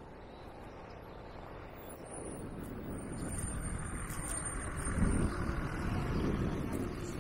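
Road traffic: a motor vehicle passing close by, its rumble building over a few seconds, loudest past the middle, then easing slightly.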